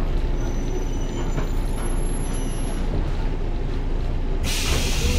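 Interior running noise of a JR 115-series electric train's motor car, a steady low rumble. About four and a half seconds in, a sudden loud hiss of air starts.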